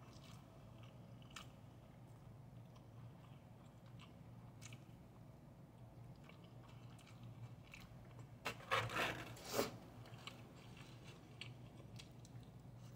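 A person chewing a mouthful of fried rice, with faint wet mouth clicks, and a louder burst of noise lasting about a second about two-thirds of the way through.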